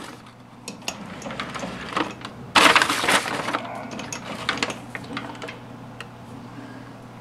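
Metal clicks and clanks from the lathe's tool post and carriage being moved and set up, with one loud clatter about two and a half seconds in, over a steady low hum.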